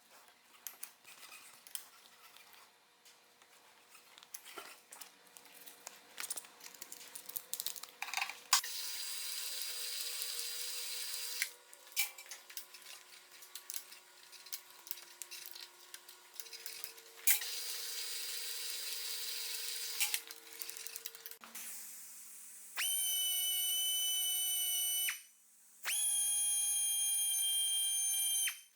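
Small clicks and taps, then two bursts of TIG welding arc of about three seconds each: a steady hissing buzz that starts sharply. Near the end come two loud, steady whistling tones of about two and a half seconds each.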